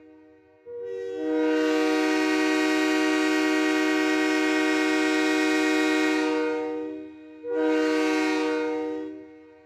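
Train horn sounding a long blast of about six seconds, then after a short break a second, shorter blast that fades away.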